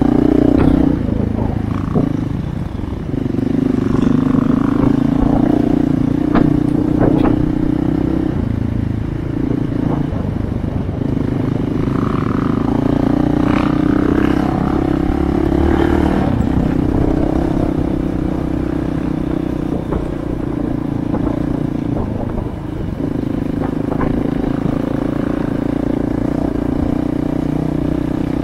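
Dual sport dirt bike engine running under way from the rider's own bike, holding a steady note that eases off briefly a few times as the throttle is rolled off and back on. Occasional knocks and clatter come from the bike riding over rough ground.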